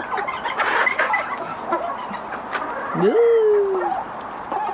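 Chickens clucking, with one drawn-out call about three seconds in that rises quickly and then slowly falls in pitch.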